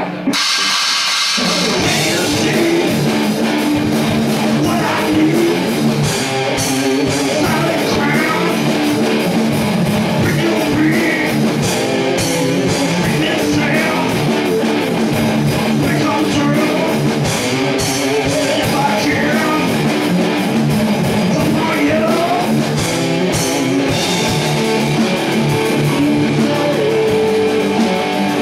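Rock band rehearsing without a bass: two electric guitars playing riffs over a drum kit, loud and continuous, with the low end coming in about a second in.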